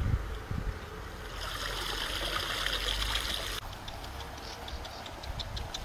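Water trickling and splashing off a wicker basket of fish as it is lifted out of the river. The sound stops abruptly about three and a half seconds in, and a few faint light ticks follow.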